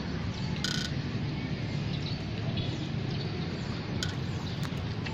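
A few short, high bird chirps over a steady low rumble of outdoor background noise.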